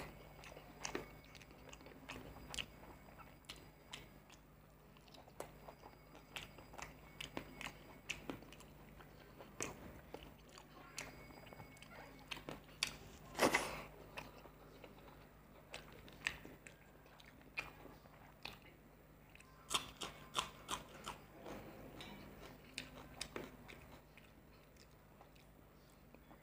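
Close-miked eating sounds: fingers picking apart curried bhola fish and a mouth chewing, with scattered wet clicks and smacks. There is a louder smack right at the start, another about 13 seconds in, and a cluster around 20 seconds.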